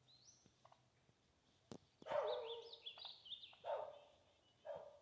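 Turkey hen calling: three loud calls, starting about two seconds in. The first is the longest and wavers in pitch, and two shorter ones follow about a second apart.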